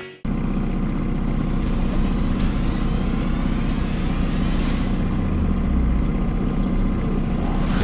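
Mercury outboard motor running steadily at trolling speed, a constant low hum mixed with wind and water noise as the boat moves.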